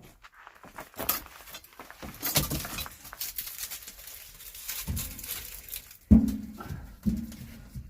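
Split firewood logs being loaded into a homemade wood stove's firebox: a series of irregular knocks and clatter, the loudest about six seconds in and another about a second later, each followed by a short low ringing.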